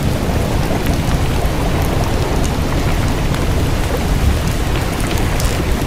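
Steady rain with a continuous low rumble underneath and scattered faint drop ticks.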